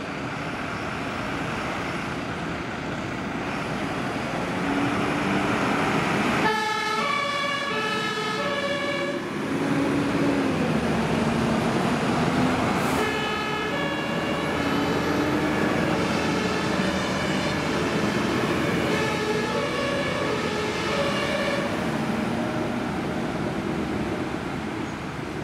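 German two-tone sirens on fire engines, switched on about six seconds in and alternating between two pitches, sounding again from several vehicles as they pull out. Heavy diesel engines run under them, with an engine revving briefly around ten seconds.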